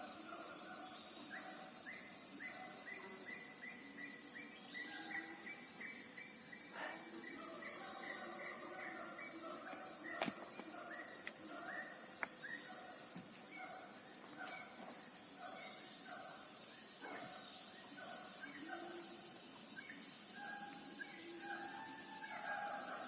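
Tropical mountain forest ambience: insects droning steadily at a high pitch, with a long series of short repeated animal calls, about one or two a second, in the background.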